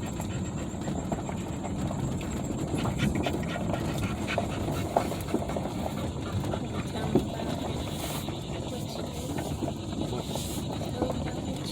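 A dog panting inside a moving pickup truck's cab over the truck's steady low road rumble and small rattles.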